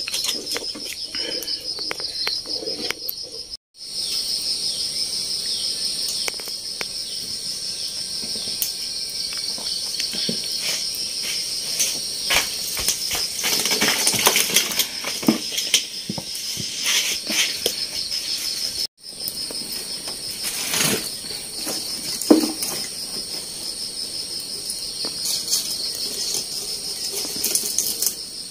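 Insects chirring steadily in a high, fast-pulsing drone, with scattered knocks and clatters of pots and wood being handled.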